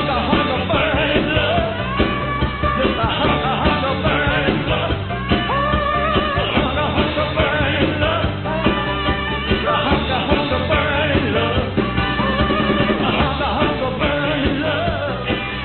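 Background song: a singer over a band with a steady beat, playing continuously.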